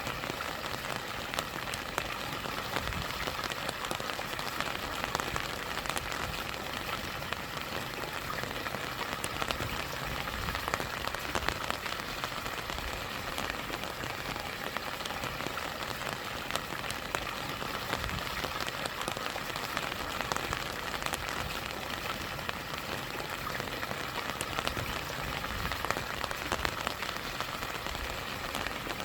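Steady rain falling, many separate drop ticks over an even rush of stream water running over a small waterfall.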